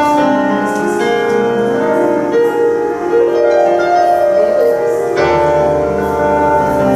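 Piano being played in a slow improvisation: held chords and melody notes ringing on, with a deep bass chord coming in about five seconds in.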